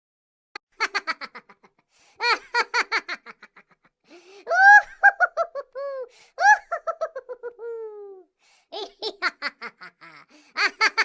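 A string of laughter sound effects, about five separate laughs with short silent gaps between them, each a run of rapid "ha-ha" pulses; the longest one, in the middle, is high-pitched and slides up and down before trailing off.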